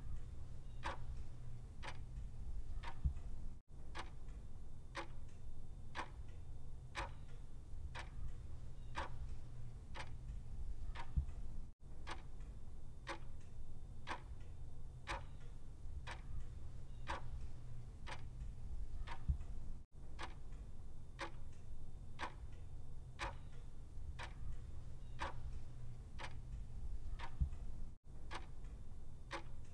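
Clock ticking, evenly spaced at about two ticks a second, with a brief dropout about every eight seconds where the looped ticking restarts. A steady low rumble runs underneath.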